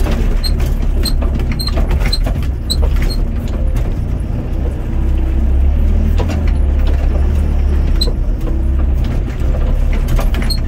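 Doosan DX55 mini excavator's diesel engine running steadily under hydraulic load as the boom and bucket work, heard from inside the cab, with scattered sharp ticks.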